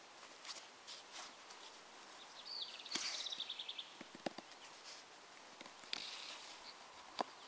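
Nylon webbing cam strap being pulled through its metal cam buckle and handled against a foam sleeping pad: faint rustling with scattered clicks. A short rapid rattling series comes about three seconds in, and a sharp click near the end.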